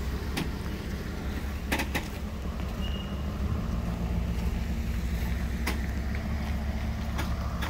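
Ford F350 Super Duty dually pickup slowly towing a Grand Design Solitude fifth-wheel trailer out of its site. A low, steady engine rumble runs throughout, with a few sharp clicks or knocks along the way.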